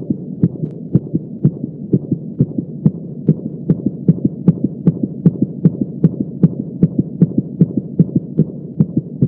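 Heartbeat sound effect: regular low thumps, about two and a half a second, over a steady low hum.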